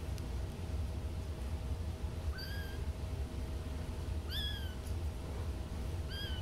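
Young kittens mewing: three short, high-pitched mews about two seconds apart, each rising then falling slightly, over a steady low rumble.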